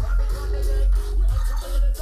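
Loud electronic dance music with a heavy, steady bass line and regular drum hits.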